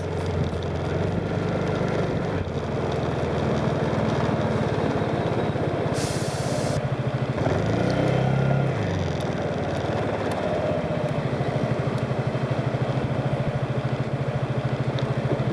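Motorcycle engine running steadily with an even pulsing note. There is a short hiss about six seconds in, and the engine note rises and falls briefly around eight seconds.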